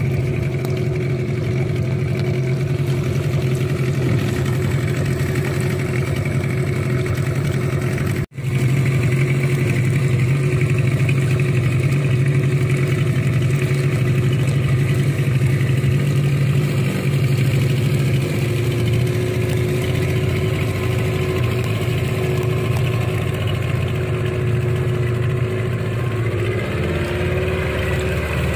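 A longboat's engine running steadily under way, with a brief break about eight seconds in; near the end its note drops and settles lower.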